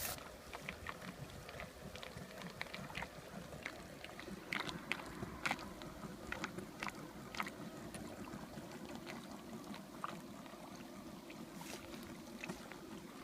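Faint water sounds at a small model boat: light lapping and trickling with many short scattered splashes and ticks, densest in the middle, over a faint steady hum.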